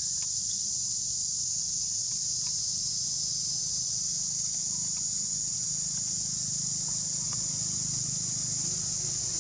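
Steady, high-pitched insect chorus that does not vary, with a faint low hum beneath it.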